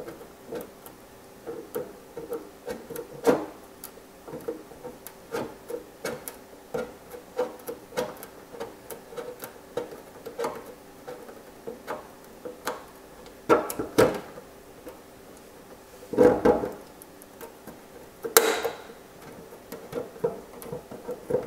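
Curved RC body scissors snipping a clear plastic RC buggy body shell around the wheel arch in many small nibbling cuts, about two sharp snips a second, a few of them louder.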